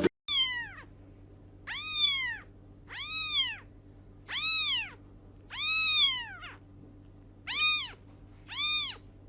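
A cat meowing over and over: a string of short meows, each rising then falling in pitch, about one a second, over a faint steady hum.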